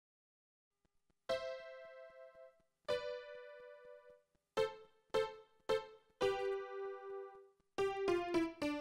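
Piano playing a slow, gentle melody of single struck notes and two-note chords, each left to ring and fade. It starts about a second in, and the notes come faster near the end.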